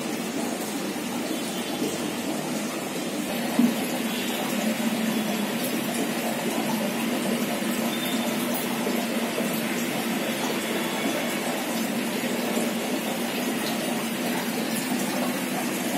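Steady running-water and pump noise from aquarium filtration, with one short knock a few seconds in.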